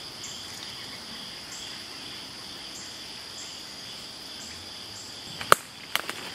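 Steady chorus of crickets and other insects: an even, high trill with a fainter chirp repeating above it. A sharp click near the end, then a few lighter clicks.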